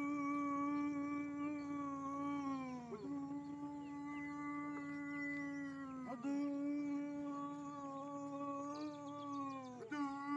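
Male ritual chant in the Javaé style, sung in long held notes. Each note stays on one pitch for about three seconds, then slides down at the end before the next begins, with new notes about 3 s and 6 s in and again near the end.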